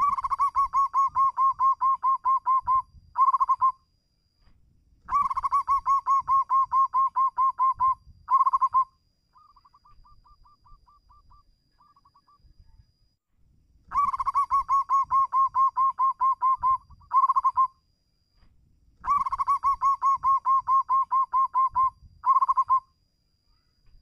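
Zebra dove (perkutut) cooing: four long phrases, each a quick run of rolling coos at about four notes a second followed by a short closing burst, with a fainter, shorter run in the middle.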